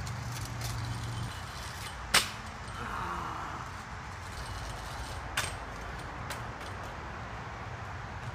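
A kick scooter knocking on asphalt: one sharp clack about two seconds in and a smaller one a few seconds later, over a low steady background hum.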